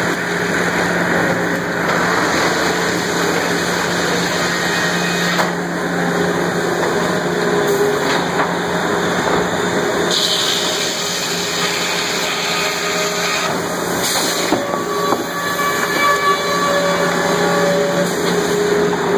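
Sawmill machinery running: a continuous loud din of motors, saws and chain conveyors, with a steady low hum and a few brief knocks.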